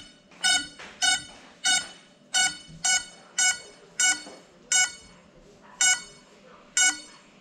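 FPV quadcopter's onboard buzzer beeping: about ten short, shrill, single-pitch beeps at uneven intervals of roughly half a second, the last one near the end.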